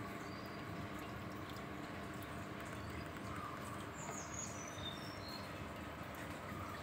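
Steady low background noise with a few faint, short, high bird chirps about four seconds in.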